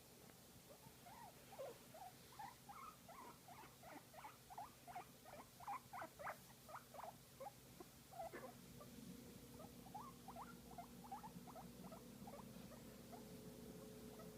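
Guinea pig making a quick run of short, soft squeaks while being massaged, with a brief pause about eight seconds in before another run.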